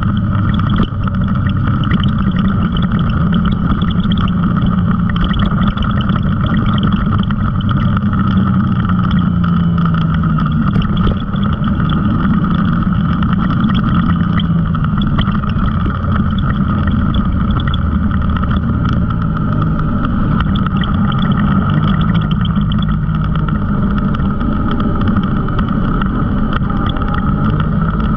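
Off-road vehicle engine running steadily while driving along a dirt trail at an even pace, with little change in pitch.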